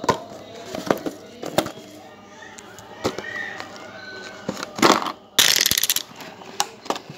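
Handling noise from a Maono AU-100 lavalier microphone's plastic battery pack and cable being turned over in the fingers: scattered sharp clicks and taps, and a harsh scratchy rustle for about half a second a little past the middle.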